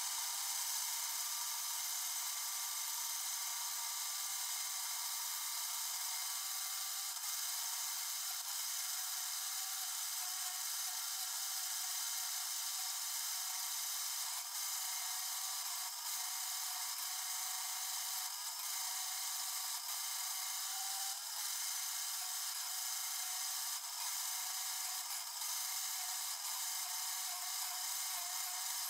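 Quorn tool and cutter grinder's wheel running and grinding the oversized outside diameter of an Acme tap down to size as the tap is turned and fed across it. The sound is played back at four times speed: a steady high whine with brief dips every second or two.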